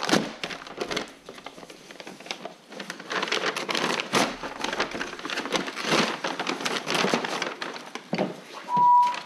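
Brown kraft paper wrapping being crinkled and torn off a cardboard mailing box, in uneven rustling bursts. Near the end, a short beep at one steady pitch, the loudest sound.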